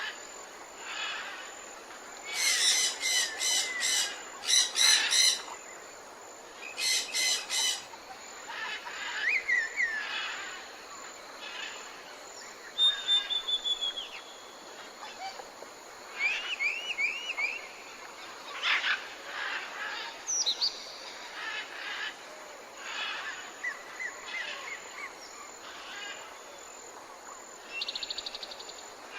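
Jungle ambience: many birds calling over a steady background hiss. Loud, rapid harsh rattling calls come in bursts a few seconds in, among scattered whistles, chirps and short trills.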